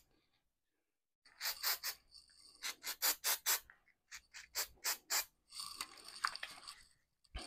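Aerosol can of heavy-duty silicone lubricant spray, nearly empty, giving a string of short hissing spritzes in quick clusters, with a longer spray near the end.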